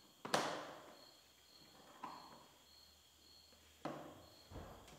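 A rubber trim strip being snapped onto the edge of a plastic bumper valance by hand: one sharp snap about a third of a second in, then a couple of fainter clicks and rustles of plastic being handled.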